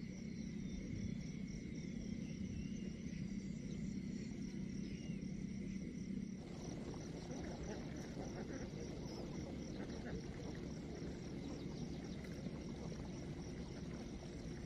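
Insects trilling steadily in a rice field, with a few faint bird chirps early on. A low hum runs under it and stops about six seconds in, after which irregular rustling noise takes over.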